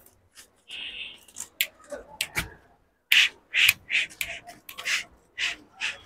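A young Kota goat buck moving on its lead across a concrete floor: hooves scuffing and clicking, with short noisy scrapes or breaths coming about twice a second in the second half.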